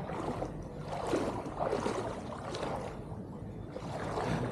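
A person wading through knee-deep floodwater, the water sloshing and swishing around the legs with each stride.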